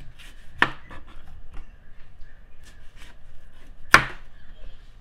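Kitchen knife cutting a dragon fruit on a plastic cutting board: scattered light clicks, with two sharp knocks on the board, one less than a second in and a louder one about four seconds in.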